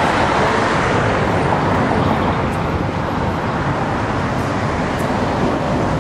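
City street traffic noise: a steady, loud wash of vehicles driving past.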